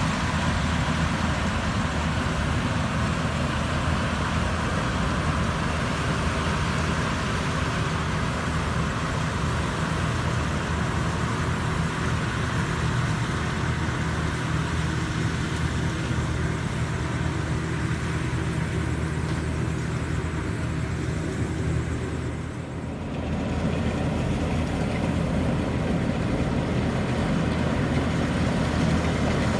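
Combine harvester's engine running steadily under load, with a low steady hum. It dips briefly about three quarters of the way through, then carries on.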